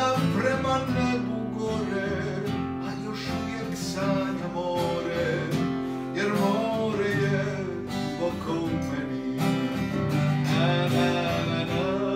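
Music: a Croatian song with strummed acoustic guitar.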